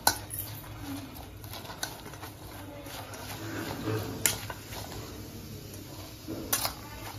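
Metal spoon mixing sliced onions, potato and curry leaves with spices in a stainless steel bowl: soft rustling and squishing of the vegetables, with a few light clinks of the spoon against the bowl.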